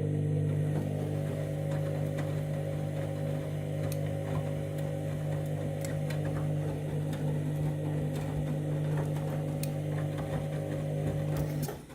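Candy washing machine's drum motor running during the main wash, a steady low hum with faint clicks and knocks, cutting off suddenly near the end.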